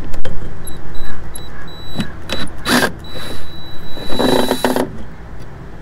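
Cordless drill-driver backing out the RV ladder's mounting screws: its motor whines in short runs, once briefly and then for about half a second near the end, amid clicks and knocks of the tool on the ladder.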